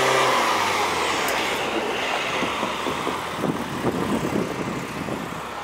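An emergency vehicle driving past on the road: engine and tyre noise, loudest at the start and fading as it moves away.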